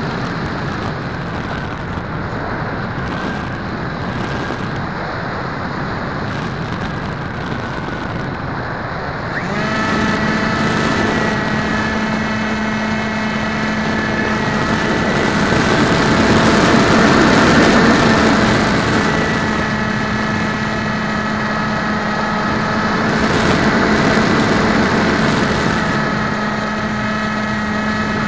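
Wind rushing over the onboard camera of an RC floater jet model plane in flight; about a third of the way in, the plane's motor comes on with a steady, even-pitched whine and keeps running, swelling louder twice.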